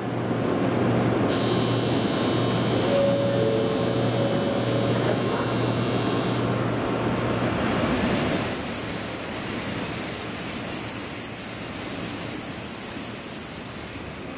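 Shinkansen platform buzzer sounding steadily for about five seconds to signal the end of boarding as the N700S train's doors close. From about eight seconds in, a high, thin whine joins the station noise as the train starts to pull out.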